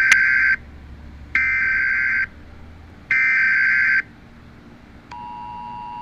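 Emergency Alert System header: three short bursts of shrill data tones with pauses between them, then about five seconds in the steady two-tone attention signal starts and holds.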